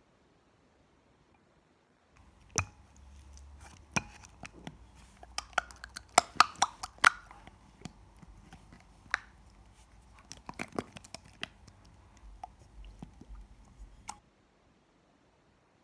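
Hands squeezing and kneading a soft pink material in a glass bowl: a run of sharp clicks, crackles and small pops over low handling rumble, thickest in the middle. It starts abruptly about two seconds in and cuts off a little before the end.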